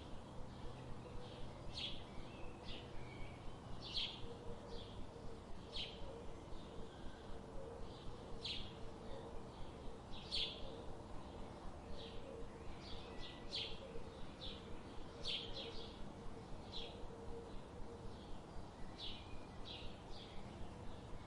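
Birds chirping: many short, high chirps, roughly one every half second to second, over a steady faint background hiss.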